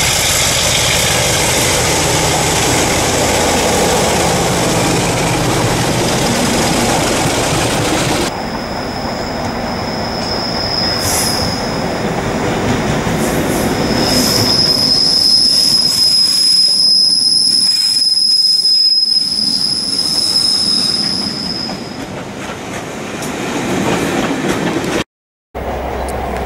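Class 33 and Class 26 diesel locomotives running past, their engines and wheels loud on the rails. After a cut, a second diesel train approaches with a brief high wheel squeal, then a long steady squeal of flanges on the curving track for about eight seconds.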